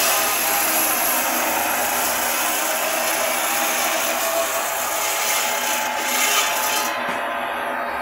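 Belt-driven stone-cutting saw grinding through a stone block, a steady harsh hiss over the machine's running hum. About seven seconds in, the hiss drops away and the spinning blade's hum goes on.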